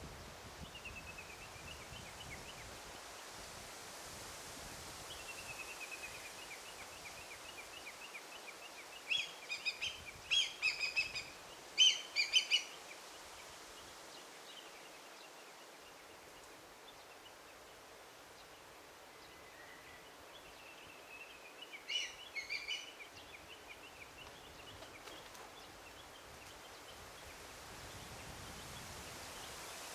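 Wild birds singing in a forest: faint calls early, then a run of loud, rapid chirping phrases about ten seconds in and a shorter one about two-thirds of the way through, over a steady hiss of forest ambience.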